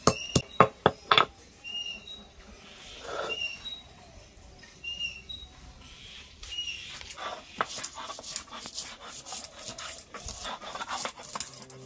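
A wooden block pounding on a wooden chopping board, crushing an ingredient into paste: a quick run of sharp knocks at the start, then softer, irregular strikes from about seven seconds in. In the pause between them, a few short high-pitched animal calls.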